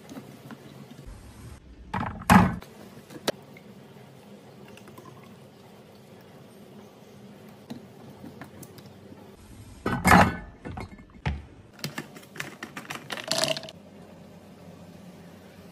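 Kitchen items being handled: a few knocks and clatters about two seconds in, then a busier run of clunks and rattles from about ten seconds in, with quiet room tone between.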